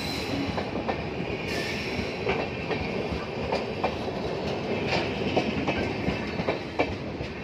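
Passenger train coaches rolling past, a steady rumble of steel wheels on rail broken by repeated sharp clicks and clacks from the wheels.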